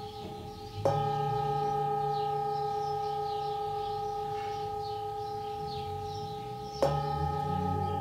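Hand-forged antique singing bowl struck twice, about six seconds apart, each strike followed by a long ringing tone that slowly fades, with a deep hum around its 143 Hz fundamental (note D) under higher overtones.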